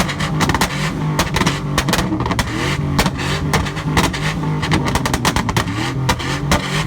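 Truck exhaust with a flamethrower kit cracking and popping in rapid, irregular bangs, several a second, over the engine running.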